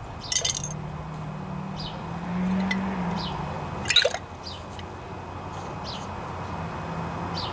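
Small metal carburetor parts dropped into a glass jar of carburetor cleaner: a few sharp clinks and liquid splashing and dripping, over a steady low hum.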